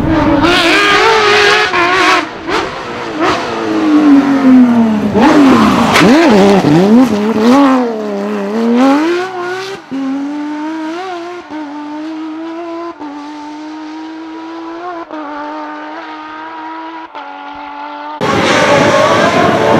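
Porsche 997 GT3 rally car's flat-six engine revving hard, its pitch sweeping up and down through gear changes. About halfway it becomes quieter and steadier, stepping up in pitch through upshifts, then it is suddenly loud again near the end.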